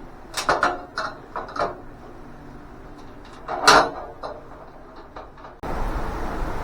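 Metal welding-cart parts and bolts being handled and fitted: a quick run of light clinks and knocks, then one louder knock a few seconds in. A steady hiss comes in suddenly near the end.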